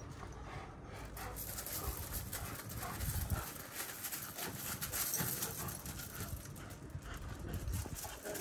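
Two year-old Kangal dogs play-fighting on gravel: scuffling bodies and paws scraping and crunching on the stones in many short irregular crunches.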